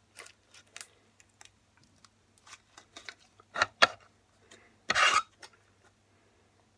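Slime being squished and stretched by hand: a scatter of small sticky clicks and pops, with two louder squelches about three and a half and five seconds in.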